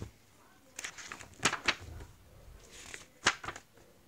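A hardcover book being handled close to the microphone: a few sharp knocks, with paper rustling in between.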